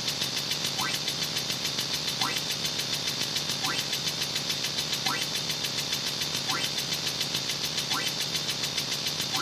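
A looped, engine-like sound effect: a steady rapid pulsing, with a short rising chirp repeating about every second and a half.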